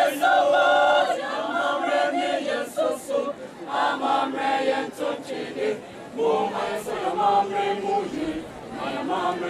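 A mixed choir of students, boys and girls, singing together in phrases with short breaks between them.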